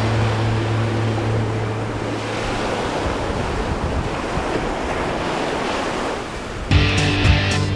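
Steady rushing wash of ocean surf with wind on the microphone. A low held music note fades out in the first few seconds, and music with a beat comes back in near the end.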